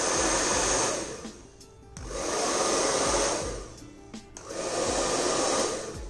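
Chaoba 2800 2000-watt hair dryer running, its loud rush of air swelling three times and dipping between swells; it makes a lot of noise.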